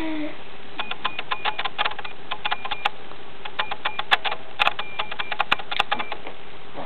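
Quick, irregular little clicks and smacks, several a second, from a baby's mouth and tongue working on spoon-fed cereal, over a faint steady hum.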